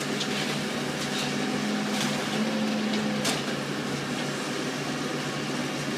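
A heavy machine's engine running steadily during a house demolition, with a few sharp cracks of the structure breaking.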